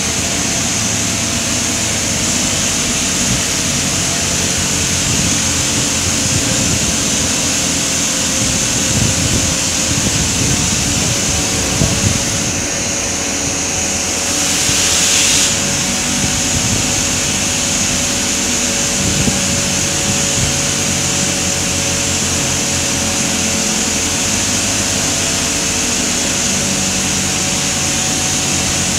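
Steady machinery noise on an offshore drilling rig's drill floor: a constant hum with a high hiss over it. About halfway through, a loud hiss swells for a second or so and stops.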